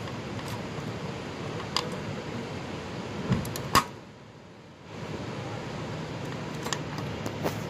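A few short metallic clicks and knocks as a CDI distributor is worked by hand into its seat on a four-cylinder engine, over a steady background hiss. The loudest knock comes a little under four seconds in, and the background drops away briefly just after it.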